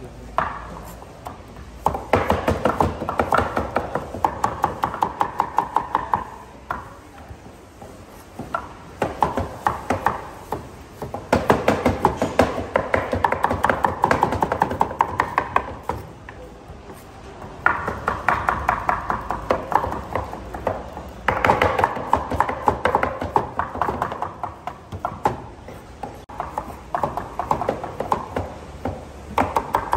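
Cleavers chopping carrots into thin strips on thick wooden boards, several knives going at once. The strokes come fast, in runs of a few seconds broken by short pauses.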